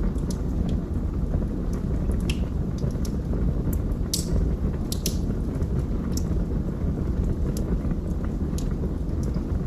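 Wood fire burning in a fireplace: a steady low rumble of flames with scattered sharp crackles and pops, the loudest pop about four seconds in.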